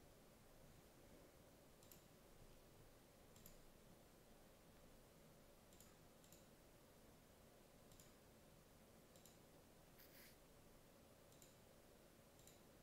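Near silence with a faint room hum, broken by about nine faint, unevenly spaced clicks of a computer mouse.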